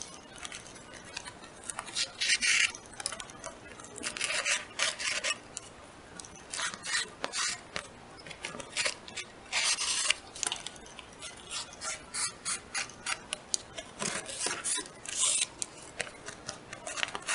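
Clear plastic bags crinkling and paper lacing boards rustling as they are handled, with a shoelace scraping as it is pulled through the punched holes. The sound is a run of irregular, scratchy rustles.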